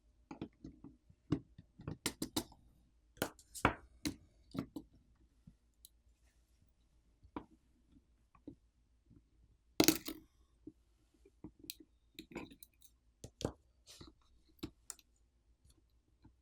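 Small hand tools and phone parts clicking and tapping against each other and a work surface as a smartphone is taken apart, in irregular light clicks with a louder clack about ten seconds in.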